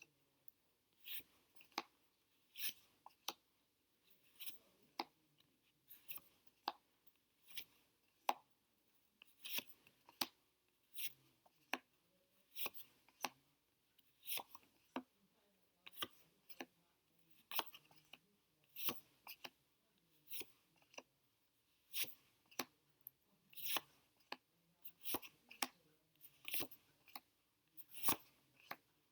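Paper flashcards being flipped over one after another, a short crisp card snap or slide about once a second.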